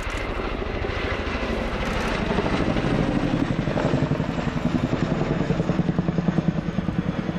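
Boeing Chinook HC2 tandem-rotor helicopter in a steep banking turn. Its two rotors beat with a rapid, even chop of blade slap that grows louder after about two seconds.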